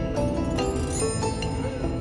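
Background music: soft instrumental with distinct, separately sounding notes.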